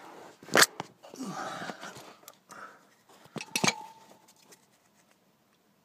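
A few sharp clicks and knocks. The loudest comes about half a second in, and another a little past halfway leaves a short ringing tone.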